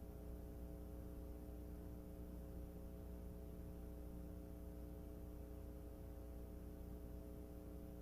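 Steady low electrical hum with several evenly spaced overtones under a faint hiss, cutting in suddenly out of dead silence at the start.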